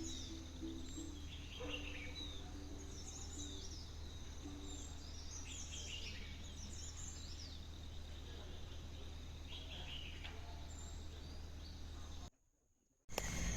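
Several birds chirping and calling in short rising and falling phrases over a steady low hum. About twelve seconds in, the sound cuts out for under a second, then a louder sound begins.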